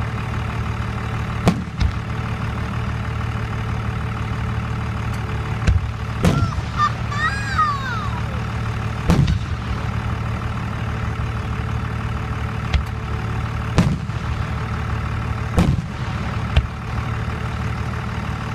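Fireworks bursting every few seconds over a steady engine drone like a vehicle idling, with a brief wavering high whistle about seven seconds in.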